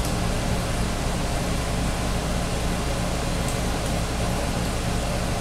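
Milling machine running steadily in back gear, a constant low motor hum with hiss over it.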